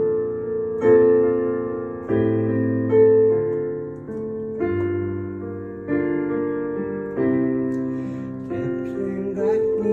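Digital piano playing a slow ballad introduction: chords struck every second or two, each left to ring and fade.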